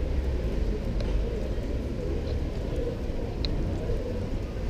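City street ambience: a steady low rumble of traffic, with one short high chirp about three and a half seconds in.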